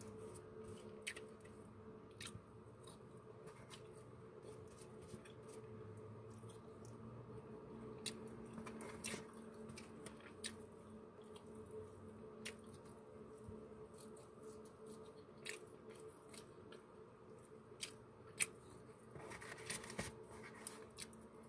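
Faint eating sounds: fried chicken being pulled apart by hand and chewed, with scattered small clicks and crackles over a low steady hum.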